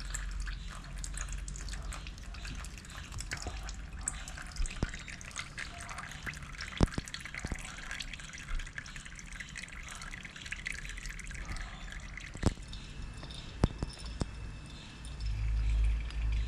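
Engine oil dripping and trickling from the motorcycle's drain hole into a catch container, with scattered small clicks. A louder low rumble comes in near the end.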